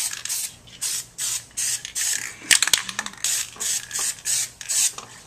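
Aerosol spray paint can (Krylon) sprayed in short hissing bursts, about two a second, as the paint is swept over a plastic airsoft gun. A few sharp clicks come about halfway through.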